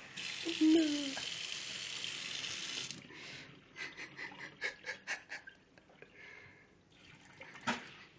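Kitchen tap running into a stainless steel sink for about three seconds, then shut off, with a brief voice-like sound near the start. A run of small sharp clicks follows, and water runs again briefly near the end.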